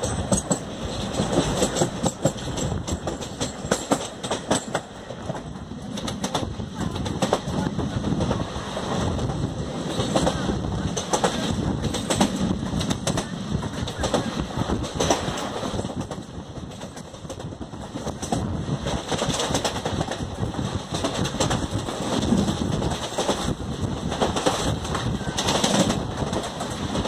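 Indian Railways express coach running at over 100 km/h, its wheels clattering over rail joints in a steady, dense run of clicks with rushing noise, heard from the coach's doorway.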